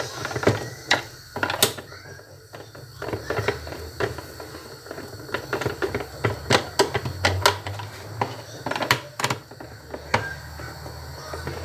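Irregular clicks and light knocks of a blender's plastic housing and parts being handled and fitted back together as the base is closed up after repair.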